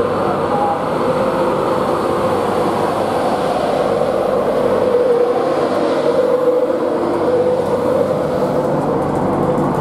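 Class 91 electric locomotive and its passenger train moving slowly past at close range along the platform: a loud, steady rumble with a held mid-pitched tone running through it.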